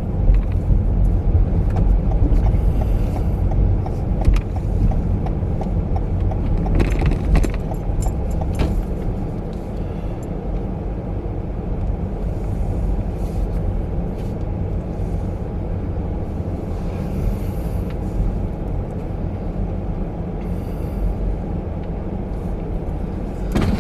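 Car engine running and tyres rolling slowly, a steady low rumble heard from inside the cabin, with a few faint clicks.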